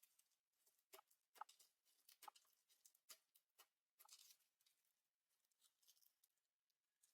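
Slime being squished and pressed by hand, giving faint, irregular sticky clicks and crackles with a denser run of crackling about four seconds in.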